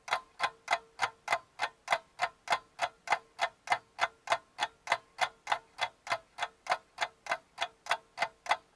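Even, rapid clock-like ticking, about three ticks a second, over a faint steady tone: a ticking sound effect laid over the footage.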